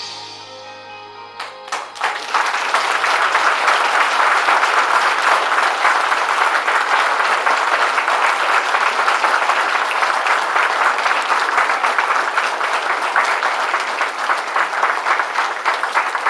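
The last notes of music end about a second and a half in, then an audience breaks into loud, steady applause.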